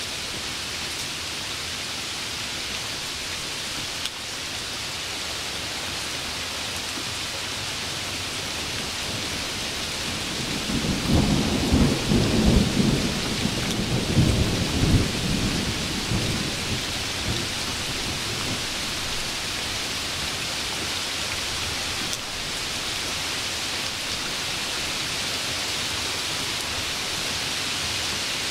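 Steady rain hiss with a low roll of thunder that builds about ten seconds in and dies away over several seconds.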